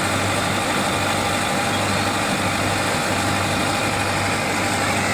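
A farm machine's engine running steadily at constant speed, a low even hum with no change in pitch.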